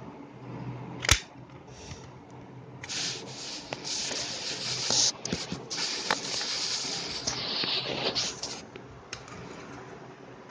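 Close handling noise of a plastic toy car: rubbing and scraping as it is held and moved about, with a sharp click about a second in.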